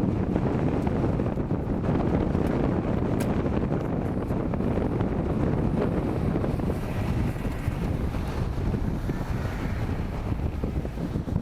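Heavy wind buffeting the microphone over the steady low rumble of an off-road vehicle driving.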